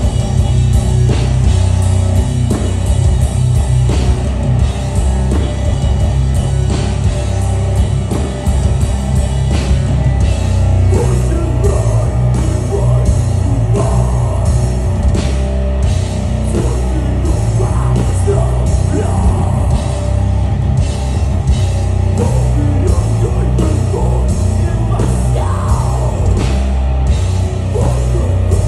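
Death metal band playing live through a festival PA, heard from the crowd: distorted electric guitars, pounding drums and growled vocals, heavy and boomy in the low end.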